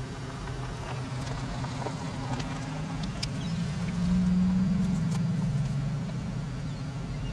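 Low, steady engine drone that swells and rises slightly in pitch about four seconds in, then eases back.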